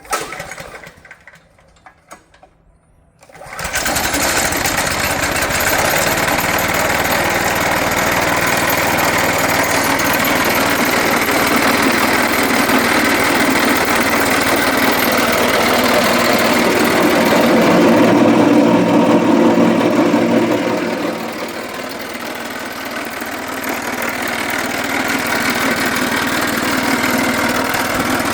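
The small gasoline engine of a DR C10-CHP wood chipper starts about three and a half seconds in after a knock and a few rattles, then runs steadily. It grows a little louder around the middle and eases off slightly again.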